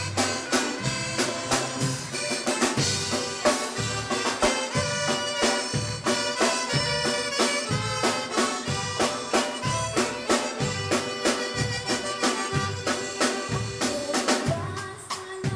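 Live band playing: two saxophones carry the melody together over a steady drum-kit beat and bass guitar.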